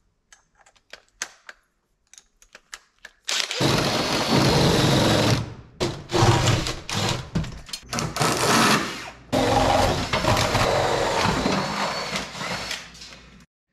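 A few light clicks, then a DeWalt cordless drill running hard from about three seconds in as it bores through the wooden wall framing, with two short pauses.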